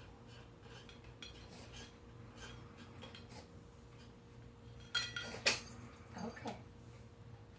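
A cat eating from a bowl, with faint crunching and light clinks on the bowl, then about five seconds in two sharp sneezes half a second apart, followed by softer ones. The sneezing comes from food passing through a hole in the back of the cat's throat into its sinus cavity.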